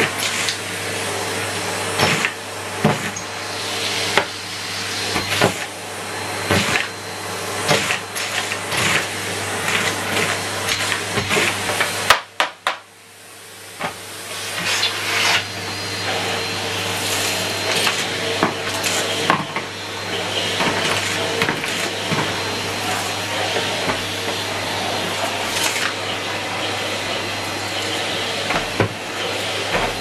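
Numatic Henry Turbo (HVT160) vacuum cleaner running and sucking up biscuit pieces, which click and rattle as they go up the wand and hose. About twelve seconds in, the sound drops away briefly, then the motor noise builds back up to a steady run.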